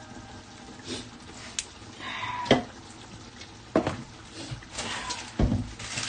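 Kitchen clatter: a few sharp knocks and clicks spaced out over a low hiss, the loudest about two and a half seconds in.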